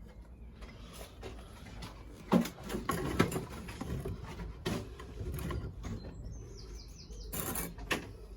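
Rustling and several sharp knocks from handling, the loudest about two and three seconds in, with a bird chirping a quick run of short high notes near the end.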